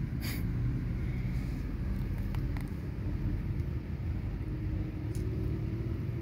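Steady low rumble, with a short crackle just after the start and a few faint clicks later on.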